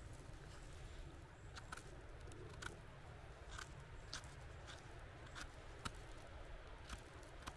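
Small knife blade scraping soil from the base of a freshly picked porcini stem: faint, irregular little scratches and clicks.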